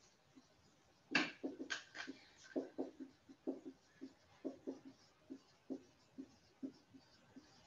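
Dry-erase marker writing on a whiteboard: an irregular run of short squeaks and taps as letters are drawn, the sharpest two about a second in.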